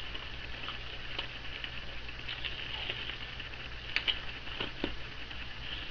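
Soap batter being worked by hand in a metal bowl: light scraping and a few small clicks and taps, most of them about four seconds in, over a steady faint hiss.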